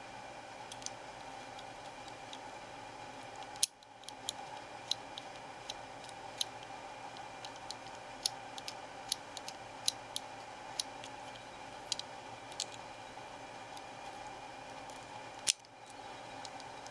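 Small sharp clicks and taps of a WE G39 (G36) gas blowback trigger assembly's parts being handled and fitted together by hand, scattered irregularly over a steady background hiss, with two louder clicks, one about four seconds in and one near the end.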